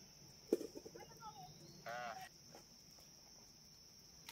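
Steady high-pitched drone of insects in the forest, with a short faint call about two seconds in.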